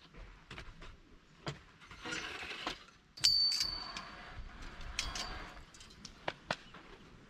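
Objects being handled: scattered clicks and knocks, with a sharp metallic clink about three seconds in that rings briefly.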